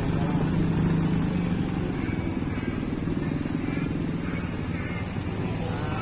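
Motorcycle engine running at low speed, a steady hum that eases slightly after about a second and a half, with faint voices in the background.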